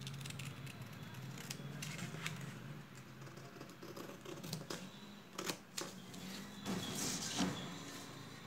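Scissors snipping through a sheet of paper: irregular crisp snips, with a louder stretch of cutting and paper rustle about seven seconds in.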